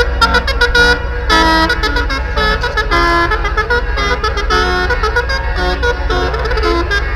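Banks of ship-mounted horns playing a tune in chords, with short clipped notes and longer held chords, over a steady low rumble.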